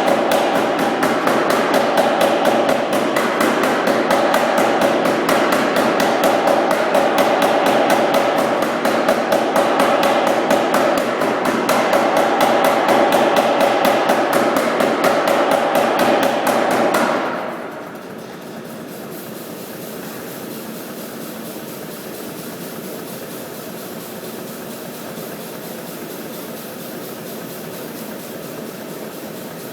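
Anyang 55 lb self-contained air power hammer striking hot 2"x2" steel stock between flat dies in a rapid, steady run of blows. About seventeen seconds in, the blows stop and a quieter, steady running noise continues.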